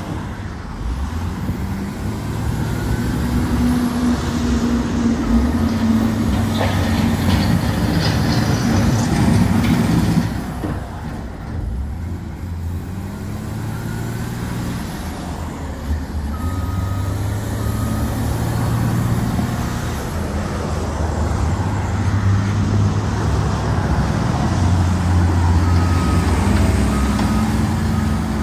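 Caterpillar 928G wheel loader's diesel engine running under load, its pitch rising and falling repeatedly as it is revved up and eases off. Short high beeps, like a backup alarm, sound a few times.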